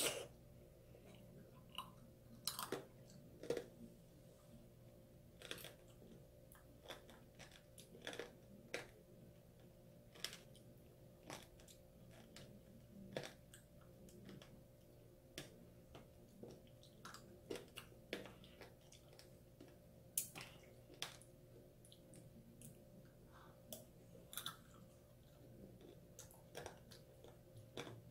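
Close-up chewing of tanghulu, the hard, brittle sugar-candy shell on strawberries cracking between the teeth in faint, irregular crunches about once a second, the strongest right at the start. A faint steady hum lies underneath.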